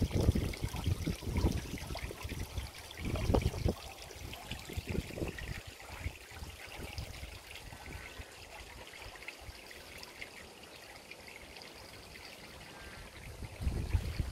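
Steady trickle of running water, with low rumbles on the microphone in the first few seconds and again near the end.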